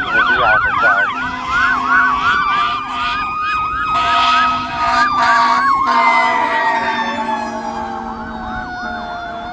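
Fire ladder truck's Federal Q mechanical siren wailing, climbing to a high pitch and then slowly winding down, while an electronic siren yelps rapidly alongside it.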